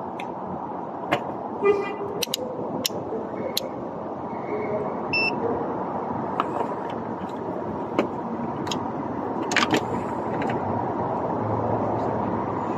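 Steady background traffic noise with scattered light clicks and a brief horn-like toot about two seconds in.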